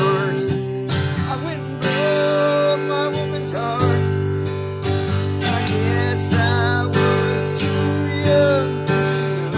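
Country song played on strummed acoustic guitar, with a wavering melody line carried over the chords.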